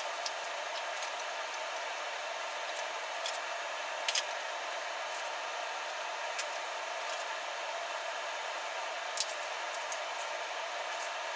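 Steady background hiss of a woodshop, with scattered light clicks and taps from hand tools being handled during layout marking.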